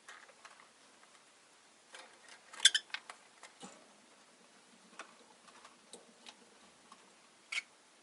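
Peach-faced lovebird pottering about, making scattered small clicks and taps. It gives a brief sharp chirp about two and a half seconds in and another short one near the end.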